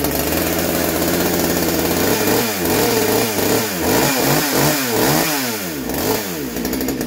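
Ported Poulan PN3414 two-stroke chainsaw running, being tuned on its carburettor. It idles, is revved in a quick series of blips about two a second, then settles back to idle.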